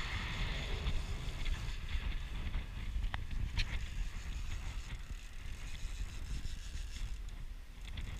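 Wind buffeting the microphone, a steady uneven low rumble, with a few faint clicks.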